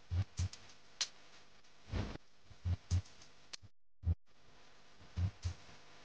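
Scattered metal clicks and light knocks of bolts, a steel spacer bracket and hand tools as they are handled and fitted to an air spring, about ten in all, some with a dull thump. The sound cuts out briefly twice about two-thirds of the way through.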